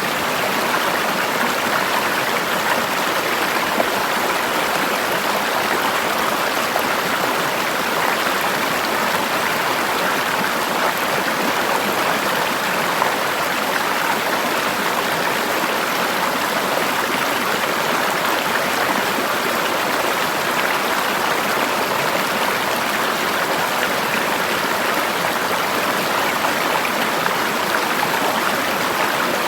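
River water flowing steadily over rocks, a constant rushing splash with no breaks.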